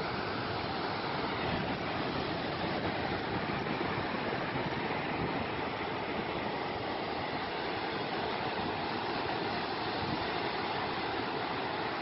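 Steady rushing of ocean surf breaking along a rocky, sandy shore, an even wash with no single wave crash standing out.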